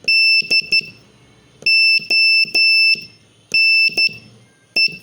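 Morse code sent as a steady, high-pitched beep, spelling the word DONE: dah-dit-dit, dah-dah-dah, dah-dit, dit, with clear gaps between the letters.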